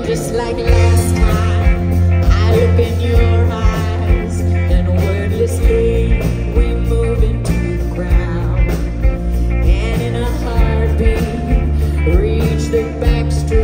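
Live pop-rock band playing, with bass and drums kicking in together right at the start under a woman's lead vocal sung into a microphone.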